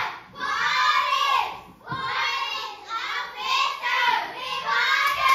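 A group of children calling out English vocabulary words together in unison, in a few drawn-out, sing-song calls about a second each. Clapping starts near the end.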